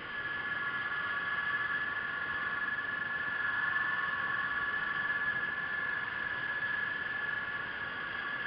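Steady high-pitched electric motor whine, several tones held together over a hiss, heard underwater: the electric drive of a radio-controlled model submarine running.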